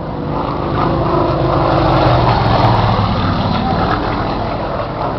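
Aerobatic propeller plane's piston engine and propeller droning as it flies past, swelling to its loudest about two to three seconds in, then easing off.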